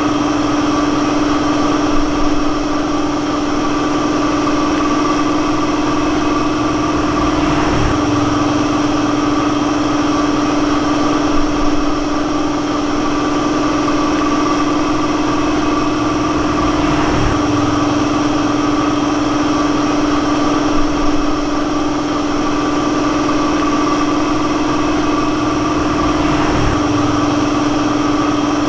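Steady mechanical drone of a running motor or engine with a constant hum, swelling faintly about every nine seconds.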